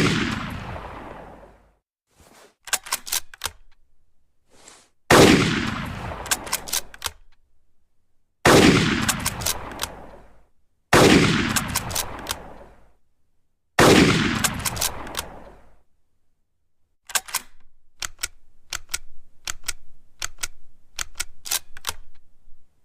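Winchester Model 70 Featherweight bolt-action rifle firing: a shot rings out at the very start, then four more follow about three seconds apart, each echoing away over about two seconds. Between the shots, and in a longer run near the end, come sharp metallic clicks of the bolt being worked.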